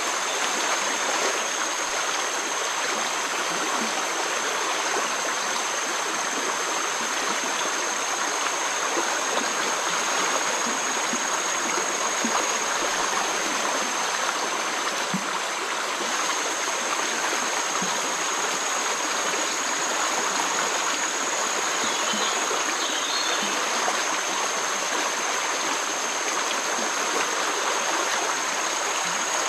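Swollen, fast-flowing floodwater of a river rushing past the bank in a steady, even rush, with a thin steady high tone above it.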